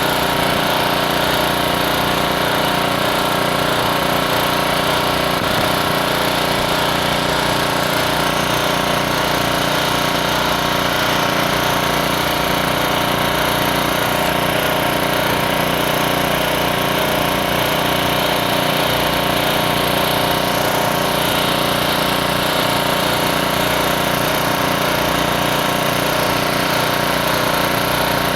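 Hot-air seam welding equipment for a PVC roofing membrane running steadily: a constant motor drone with hiss that does not change.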